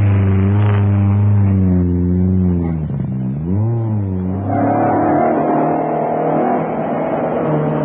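Rally car engine accelerating away from a standing start, its note rising and falling through gear changes, with a dip and a sharp climb in pitch about three seconds in. A higher, steadier engine note takes over about four and a half seconds in.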